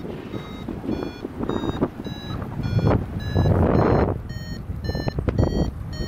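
Paragliding variometer beeping in short repeated tones, about three a second, signalling that the glider is climbing in lift. Gusts of wind rush over the microphone underneath.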